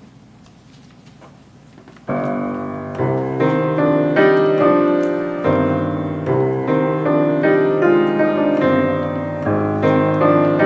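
Grand piano playing, starting suddenly with a loud chord about two seconds in, then a steady flow of struck, ringing chords and notes.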